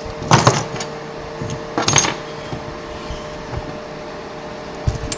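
A few clacks and clatters as a lock and small metal lock-picking tools are handled and set down, over a steady hum.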